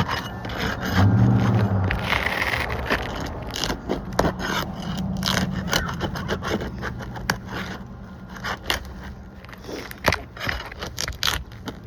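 Asphalt shingles being worked loose and pried up by hand, with irregular scraping, crackling and sharp clicks and knocks. A brief low hum sounds about a second in.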